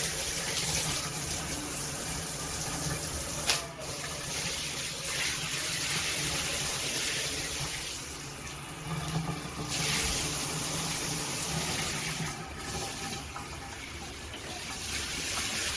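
Water running and spraying steadily from a dual shower head, a full hiss of spray, with one sharp knock about three and a half seconds in.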